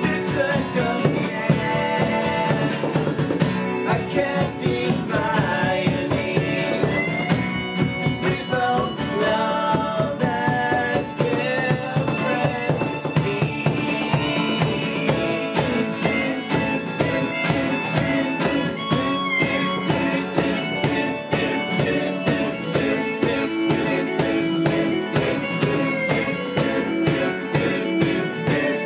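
A rock band playing live: guitars over a steady drum beat, with singing in places.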